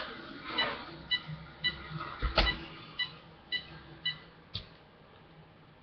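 Short electronic beeps about twice a second from a Traxxas Stampede RC car's electronic speed control as it is being switched on. The beeps fade out about four seconds in, and the car does not start. Light handling clicks run under them, with a knock about two and a half seconds in.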